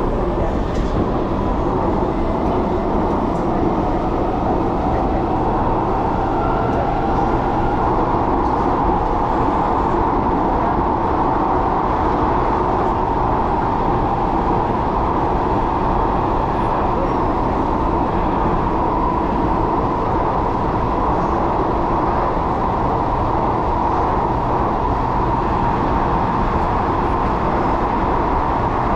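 Singapore MRT train running between stations, heard from inside the passenger car: a steady rumble of wheels on rail with a steady whine running through it.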